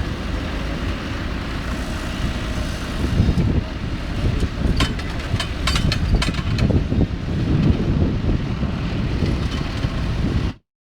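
Tractor engine running steadily under a noisy outdoor rumble, with a few sharp clicks or knocks midway. The sound cuts off abruptly near the end.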